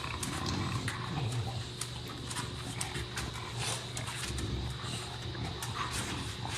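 Bulldogs grunting and breathing noisily as they play together.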